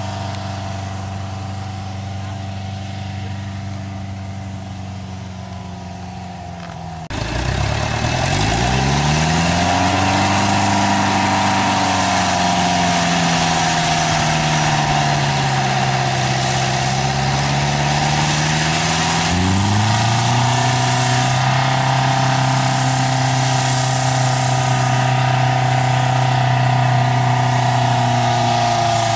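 Engine of a tracked farm cart running steadily. About seven seconds in it becomes suddenly louder, and its speed rises and then sags slowly. Near twenty seconds it picks up again and holds a steady higher pitch.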